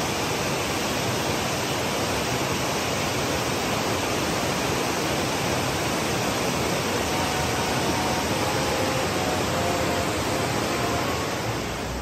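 Kamadaru waterfall: a steady, even rush of falling water.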